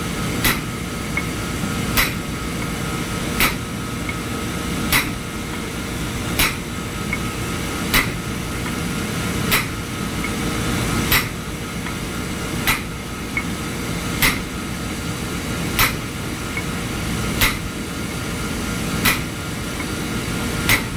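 Steel bar driving a bearing into a purifier's electric-motor coupling housing: sharp metal-on-metal knocks, one about every second and a half, as the bearing is seated. Steady engine-room machinery hum runs underneath.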